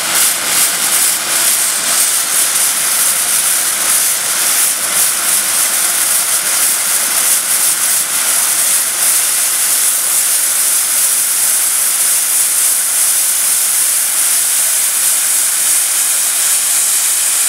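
Steam venting from a pipe on top of a Farquhar overtype engine's boiler, a loud, steady hiss.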